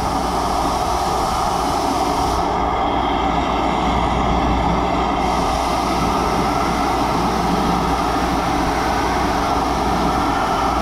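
Handheld gas torch burning with a steady, even rushing noise, its flame held on a car's low-side AC line to heat it for brazing over a pinhole leak.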